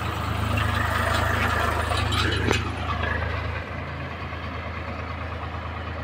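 A diesel engine running steadily at low revs, its note easing slightly about three and a half seconds in. There is a single sharp click about two and a half seconds in.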